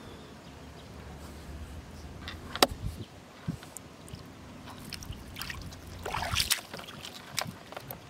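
Shallow river water splashing and sloshing as a hooked fishing line is hauled out by hand, with a sharp click about two and a half seconds in and a longer burst of splashing about six seconds in.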